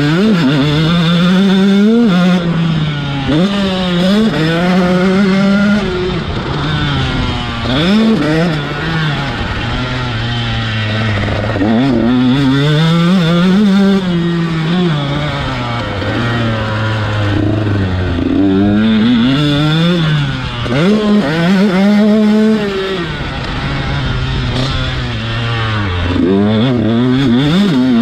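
KTM SX 125 single-cylinder two-stroke motocross engine revving hard, its pitch climbing and dropping again and again as the throttle is opened and shut around the track.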